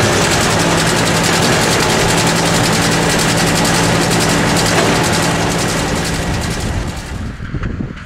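Tractor and trailed Pöttinger Mex VI forage harvester running steadily, its pickup and chopper taking in a grass swath for silage: a loud, even machinery drone. The noise falls away about seven seconds in.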